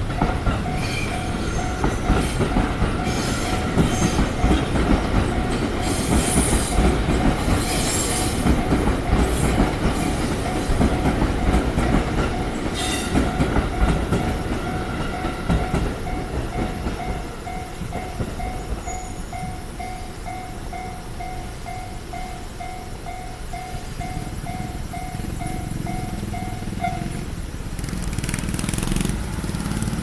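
A Japanese level-crossing warning bell rings in quick, evenly repeating dings. Through the first half an electric train passes, rumbling, with its wheels clacking over rail joints. The bell stops a few seconds before the end.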